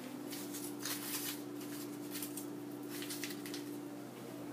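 Scattered short rustling and handling noises, thickest in the first second and a half, over a steady low hum.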